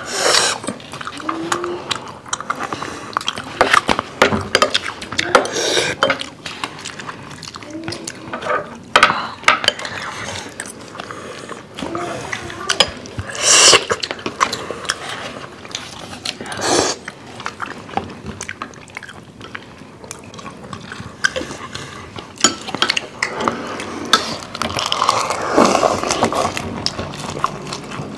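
Eating sounds at a table: metal spoons clicking and scraping against ceramic bowls and plates, many short clicks, with soup slurped from a spoon now and then.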